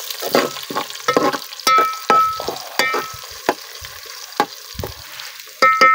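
Metal ladle stirring sliced onions frying in oil in a metal cooking pot. The ladle scrapes and knocks against the pot again and again, some knocks ringing briefly, over a steady sizzle. The loudest knock comes near the end.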